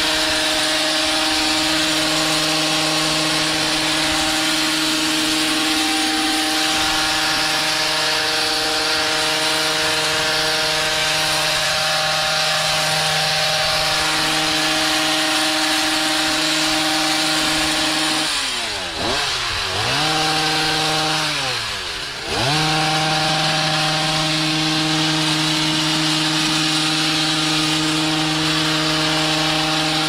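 Stihl HS 56 C two-stroke gas hedge trimmer running steadily at high revs while cutting through a shrub. About two-thirds of the way in, the throttle is let off twice in quick succession, the engine note falling sharply and climbing back to full speed each time.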